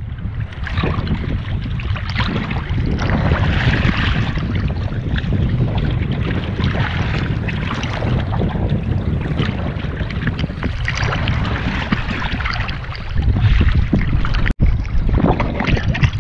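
Shallow seawater sloshing and splashing against a waterproof action camera held at the surface, with wind buffeting the microphone. The sound cuts out for an instant near the end.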